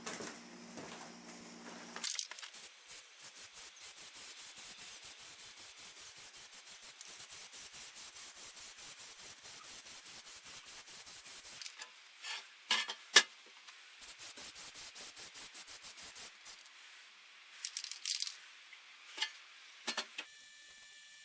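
Duct tape pulled off the roll in two long strips, a rapid even crackle, with a few sharp rips and handling noises between and after.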